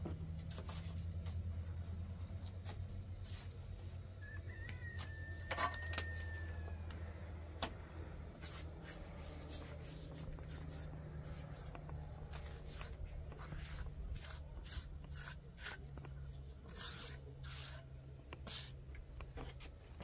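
Steel mason's trowel scraping and tapping wet mortar over and over as it is packed onto the top of a concrete pillar around a wooden beam, in short irregular scrapes and clicks, over a steady low hum.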